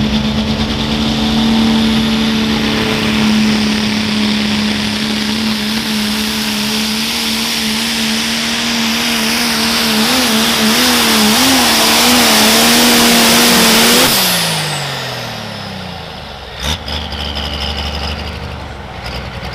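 Pro stock diesel pulling truck, a Dodge Ram, under full throttle pulling the sled. The engine holds a steady high pitch that wavers over its last few seconds. About fourteen seconds in the throttle is cut, and the engine and a high turbo whine wind down, followed by a single sharp thump a couple of seconds later.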